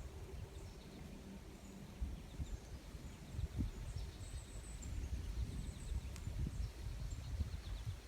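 Faint outdoor ambience: scattered high bird chirps over a low, uneven rumble.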